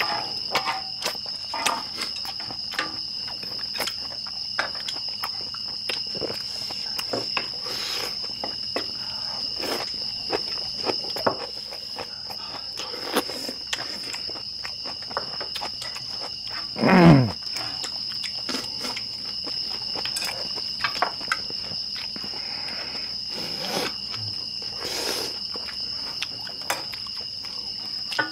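Night insects chirring steadily, with scattered clicks of chopsticks and wooden spoons on a griddle and eating sounds. About two-thirds of the way through comes one short sound that falls steeply in pitch, the loudest moment.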